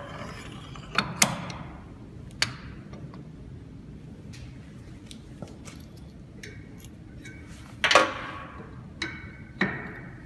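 Metal clinks and knocks from fitting collet-closer parts, the draw tube and then the linkage arm, onto a lathe headstock. There are six sharp clicks spread through, the loudest about eight seconds in, over a low steady hum.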